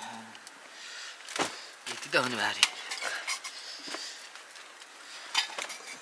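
Short clinks, knocks and rustles of household belongings being handled and packed, with a voice speaking briefly around two seconds in.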